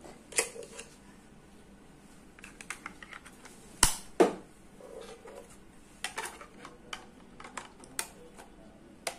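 Handling of a doorbell camera and its packaging: irregular small clicks, taps and rustles, with two sharper knocks close together about four seconds in.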